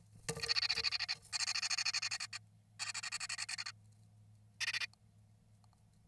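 Incubating female great tit in the nest box giving rapid, buzzy chattering calls in four bursts, the last one short: begging as the male arrives with food.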